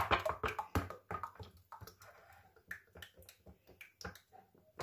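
Cooking oil poured from an upturned plastic bottle into a glass cup: a quick run of sharp clicks in the first second or so, then faint, irregular glugs and ticks as the oil flows.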